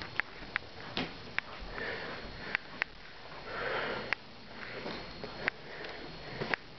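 A person sniffing and breathing in a few noisy breaths, the strongest about two and four seconds in, amid scattered sharp clicks.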